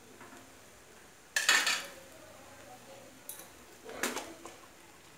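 Steel kitchen utensils clanking: a sharp metal clatter with a short ring about a second and a half in, then a smaller clank about four seconds in.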